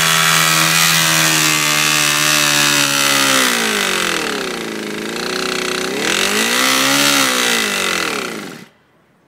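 Motorcycle engine held at high revs, then dropping and rising in pitch twice as the throttle is worked, before cutting out suddenly near the end.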